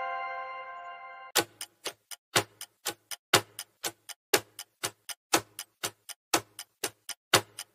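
The tail of a bell-like chime dies away, then about a second and a half in a ticking clock countdown sound effect starts: about four ticks a second, with a louder tick once a second.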